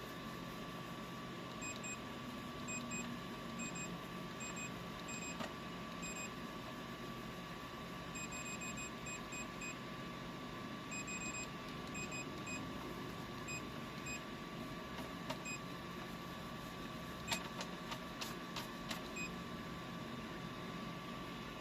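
Creality CR-10 Smart 3D printer running: a steady fan hum with a constant tone, broken by short high chirps in quick little groups, and a few sharp clicks about three-quarters of the way through.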